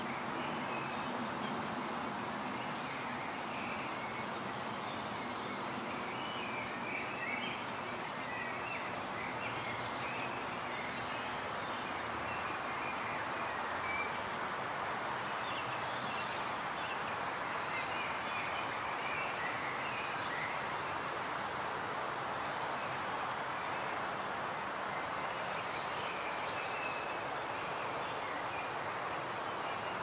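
Steady outdoor background noise with faint bird calls and chirps scattered through it, some high and thin.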